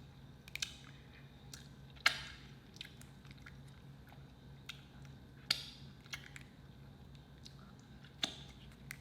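Close-up eating sounds: chewing with scattered sharp, wet mouth smacks and clicks, about seven of them, the loudest about two seconds in. A faint steady low hum runs underneath.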